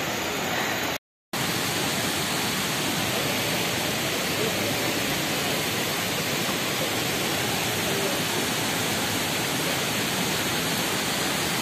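Steady rush of a rocky waterfall stream, water pouring over and between boulders. The sound drops out completely for a moment about a second in.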